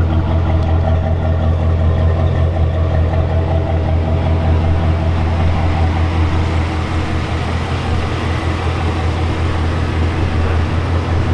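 A vehicle engine idling steadily with a low, even hum that dips slightly a little past the middle.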